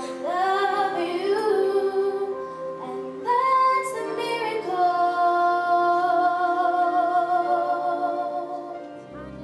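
A woman singing a slow solo line into a handheld microphone over a sustained backing. She holds one long note through the second half before it fades near the end.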